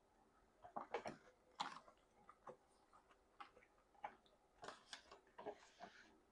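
Faint, irregular wet mouth clicks and smacks of someone chewing jajangmyeon noodles, with a short hiss near the end.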